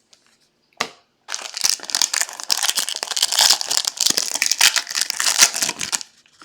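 Trading-card pack wrapper crinkling as it is torn open and handled, a dense crackly rustle lasting about five seconds after a single sharp click near the start.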